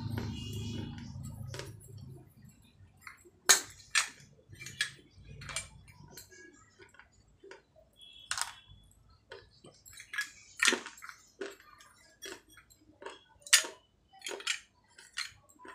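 Dried clay pot pieces crunching and cracking as they are bitten off and chewed: a dozen or so sharp crunches at uneven intervals, with fainter crackles between.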